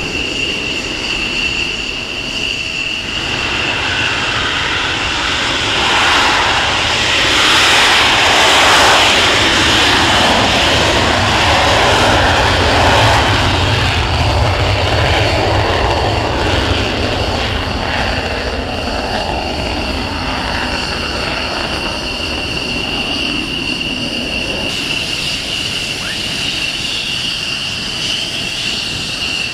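F-16 fighter's jet engine with a steady high-pitched whine. A broader rushing roar swells for several seconds in the middle, loudest about a third of the way in, then falls back to the whine.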